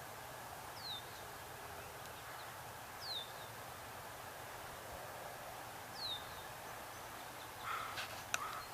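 Steady outdoor background hiss with a small bird's short, high chirp that falls in pitch, repeated three times about every two to three seconds.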